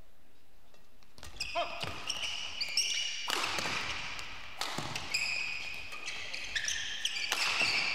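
Badminton rally: a feather shuttlecock struck back and forth with rackets in repeated sharp hits, starting about a second in, with players' shoes squeaking on the court floor.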